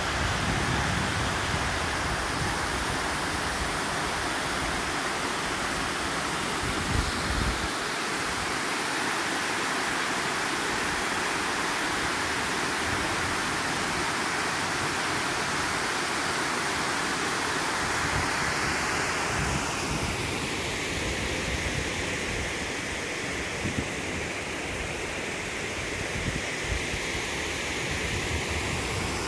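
Water overflowing a dam's spillway, a steady rushing. Low gusts of wind buffet the microphone in the first seconds and again about seven seconds in, and the rush thins a little about two-thirds of the way through.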